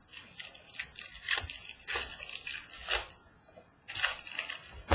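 The wrapper of a 2014 Donruss baseball card pack being crinkled and torn open by hand: a run of irregular rustling and ripping noises.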